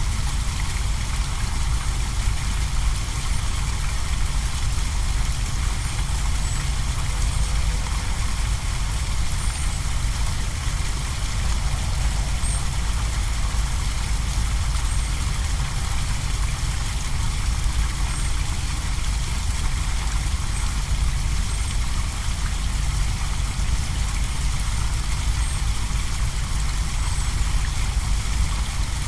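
The steady rush of a small manmade pond waterfall over a low rumble. Faint high chirps come every two to three seconds.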